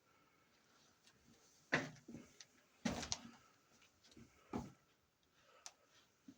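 A few scattered scuffs and knocks, the loudest about two and three seconds in: a person shuffling and crouch-walking over the rock and dirt floor of a cramped cave passage.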